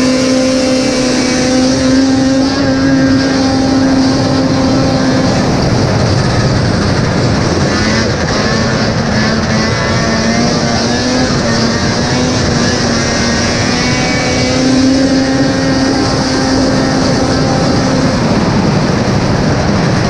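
Vintage Arctic Cat El Tigre racing snowmobile's two-stroke engine running hard at a steady high pitch, easing slightly a few times, over a rush of wind and track noise.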